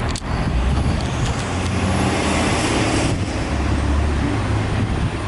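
A motor vehicle engine running with a steady low hum. A hissing noise rises about a second and a half in and cuts off suddenly about three seconds in.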